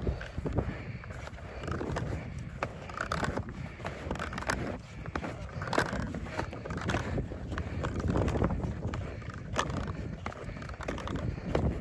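Touring skis on climbing skins sliding and scraping over snow in a steady uphill stride, with repeated crunches and clicks from ski poles being planted.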